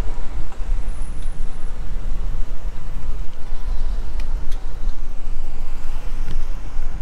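Wind buffeting a camera microphone on a moving bicycle: a continuous, gusting low rumble, with a few faint clicks late on.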